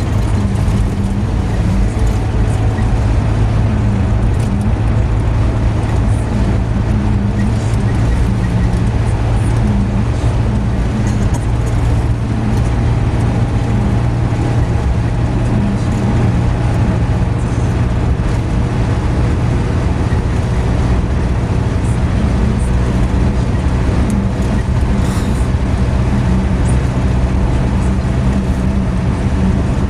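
Steady drone of a car's engine and tyres on the road, heard from inside the moving car, with a constant low hum.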